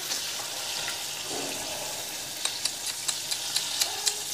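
Hot oil frying in a kadai, a steady sizzle. From about halfway through, sharp crackling pops come about four times a second.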